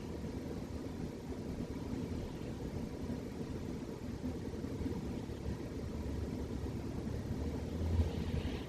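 A sleeping cat snoring: a steady low rumble that swells a little about eight seconds in.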